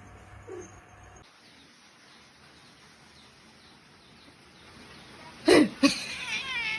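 Low hiss, then near the end a cat yowls: a sudden loud cry falling in pitch, followed by a wavering, drawn-out caterwaul.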